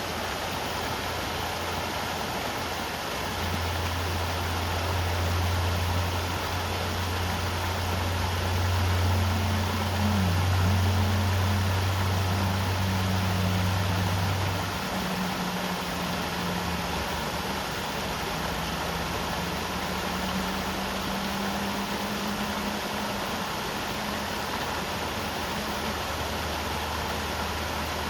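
River water rushing steadily over its bed. Underneath runs a low engine hum, loudest through the first half, with a fainter wavering tone continuing after it eases off about halfway through.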